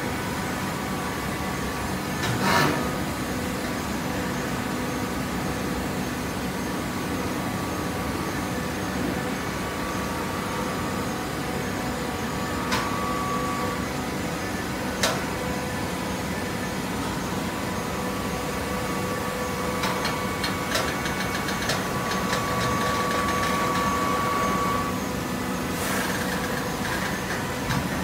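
TCM horizontal hydraulic baler running: a steady drone from the machine, broken by a few sharp metallic clanks. A thin steady whine comes in briefly, then holds for several seconds near the end.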